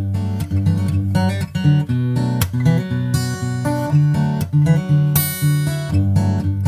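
Background music: acoustic guitar playing a steady run of plucked and strummed chords.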